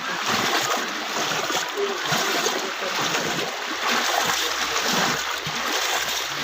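Floodwater rushing and splashing steadily, a constant dense wash of water noise.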